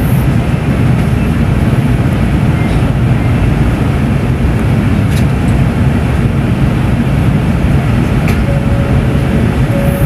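Steady low running noise of an N700S Shinkansen train in motion, with no change in level.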